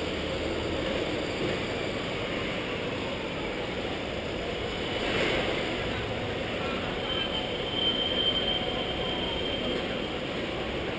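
Steady city street traffic noise from the road below, a continuous rumble of passing vehicles, with a faint high squeal lasting a few seconds from about seven seconds in.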